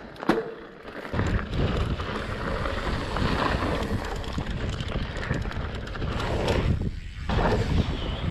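Mountain bike ridden along a dirt trail: wind buffeting the rider's camera microphone over tyre noise on dirt, with the bike's frame and drivetrain rattling throughout. The noise drops briefly about seven seconds in, then picks up again.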